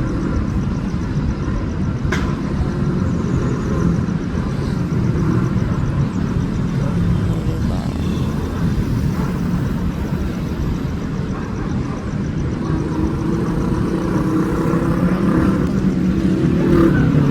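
A motor running steadily, a low drone with a faint wavering pitch. There is a sharp click about two seconds in, and the drone grows a little louder near the end.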